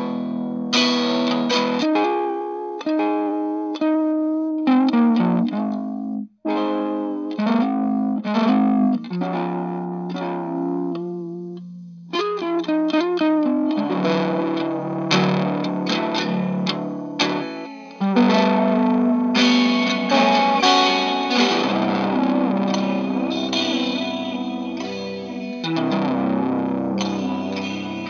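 Electric guitar played through a Chase Bliss Generation Loss MKII tape-emulation pedal, its Saturate control turned up so the tone gets fairly blown-out. Picked notes and chords, with a short break about six seconds in, then fuller held chords.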